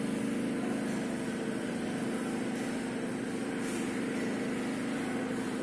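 Steady mechanical drone: an even hum with a background hiss, holding level without a break.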